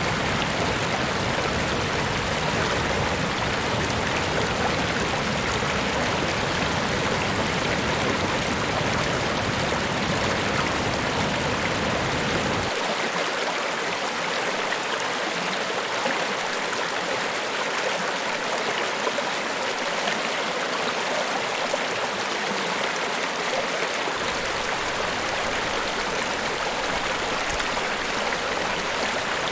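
Niagara Falls: a steady rush of falling water. The deep low rumble drops away for about ten seconds in the middle, leaving only the higher hiss of the water.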